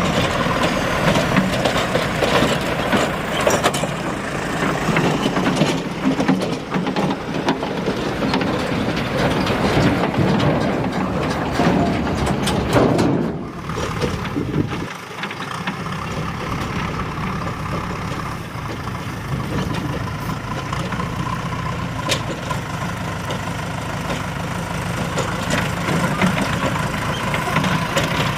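Heavy diesel engine running continuously with its note and load varying, like a backhoe loader or tipper truck at work. About halfway through the sound drops briefly and then carries on, steadier.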